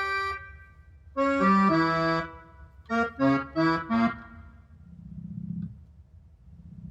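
Roland FR-1x digital accordion played: a few held notes, then a quick run of short notes, all at the wrong pitches because the instrument is set to button-accordion mode. Near the end come two low, rough growls of about a second each, the sound the top keys make in this wrong mode.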